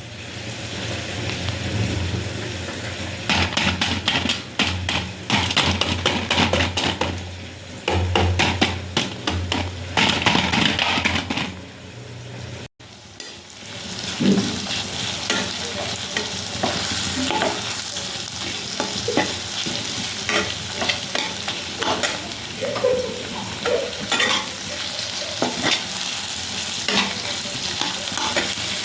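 Food frying and sizzling in hot oil in a pan while a spatula stirs it, with frequent clicking scrapes against the pan. A brief break comes near the middle; after it the sizzling is steadier and the stirring sparser.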